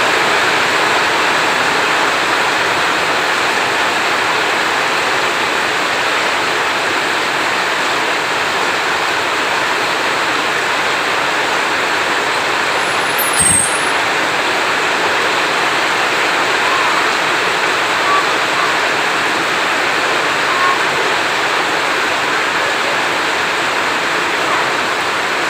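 Heavy rain falling steadily, a dense even hiss, with one sharp click about halfway through.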